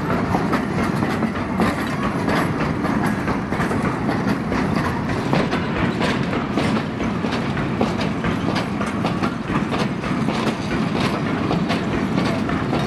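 Railway oil tank wagons rolling past close by: a steady rumble of steel wheels on the rails, broken by repeated sharp clicks and knocks as the wheels cross the rail joints.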